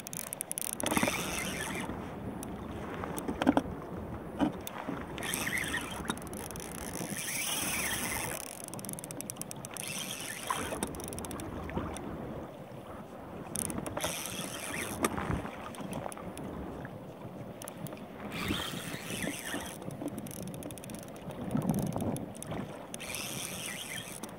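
Small waves slapping and sloshing against a kayak hull in irregular surges, with wind on the microphone and a few sharp knocks of gear on the boat.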